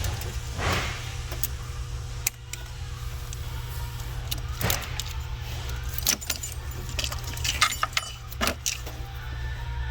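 Scattered metallic clicks, clinks and knocks from hand tools and metal parts as a stuck fuel injector is worked at, its O-rings baked into the intake, with a cluster of sharper clinks near the end. A steady low hum runs underneath.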